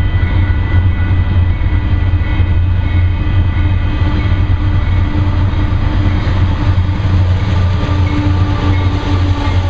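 Freight train's diesel-electric locomotives, a CSX GE wide-cab unit leading, approaching and passing close by. The engines run loud and steady with a deep hum.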